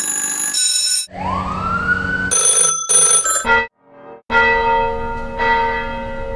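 A string of synthesized sound effects from a software sound-effects plugin: bell-like electronic tones, a rising pitch sweep about a second in, a few short high blips, then a sustained buzzy tone for the last two seconds.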